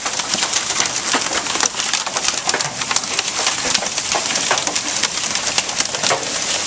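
Hail pelting down in a dense, steady clatter of many small hits, mixed with rain.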